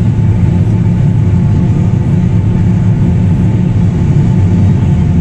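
Combine harvester running while harvesting corn, heard from inside the cab as a steady, loud, low drone of engine and machinery.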